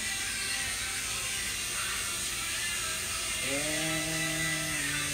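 Electric tattoo machine buzzing steadily. About three and a half seconds in, a person's long held vocal note sounds over the buzz for a second or two.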